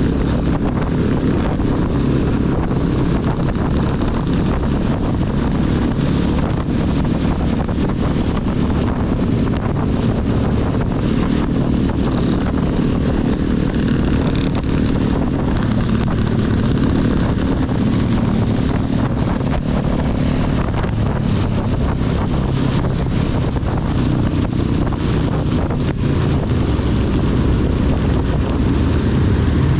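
Honda CB250 motorcycle engine running steadily while riding, with wind rushing over the microphone. Heavy rain spatters throughout as many small ticks over a steady hiss.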